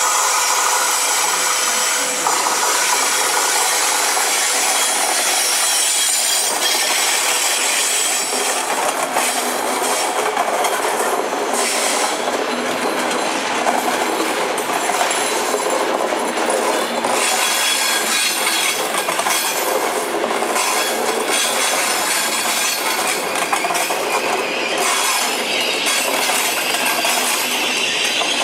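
Night train of Trenitalia couchette and sleeper cars, hauled by an SNCF BB 36000 electric locomotive, rolling past along a platform: steady wheel-on-rail noise, with runs of clicks over the rail joints in the middle stretch.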